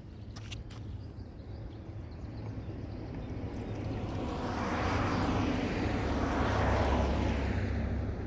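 A vehicle passing by: its noise swells gradually, peaks about five to seven seconds in, and starts to fade near the end.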